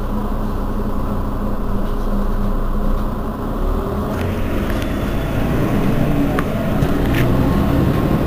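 Mercedes-Benz Citaro facelift city bus idling at a stop, a steady low engine hum. About four seconds in a brighter hiss joins it, with a few faint clicks.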